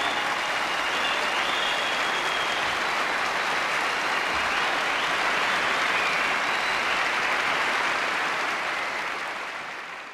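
Studio audience applauding, a dense steady clapping that fades away near the end.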